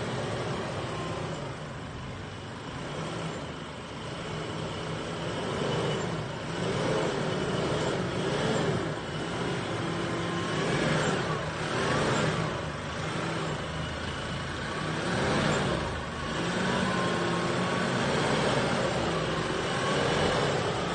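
Holden Colorado RG ute's engine working under load as it crawls over rock ledges, the revs rising and falling again and again as the throttle is fed in and eased off.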